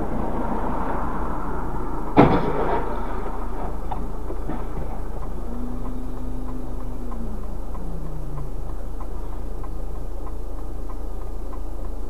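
Dashcam car's steady road and engine noise with a low hum, broken about two seconds in by a single loud bang: a collision on the road ahead, which raises a cloud of dust. A few seconds later a lower tone holds and then slides down in pitch, and faint regular ticking sounds toward the end.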